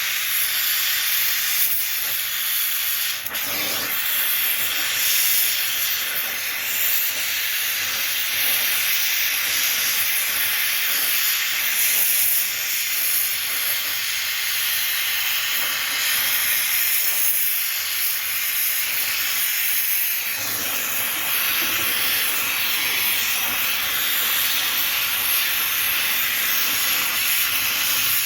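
Gas torch flame hissing steadily as lead battery plates are welded.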